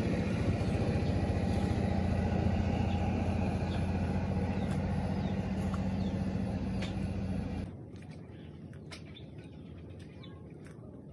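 A steady, loud motor hum with a low drone cuts off abruptly about eight seconds in, leaving a quieter outdoor background with a few faint bird chirps.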